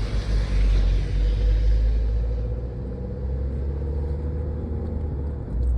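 Car on the road: steady low engine and road rumble with a faint steady hum, and a rushing noise that fades after about two and a half seconds.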